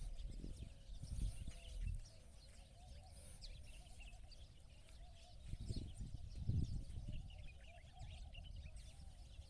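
Many small birds chirping and calling, with low rumbling on the microphone during the first two seconds and again around six seconds.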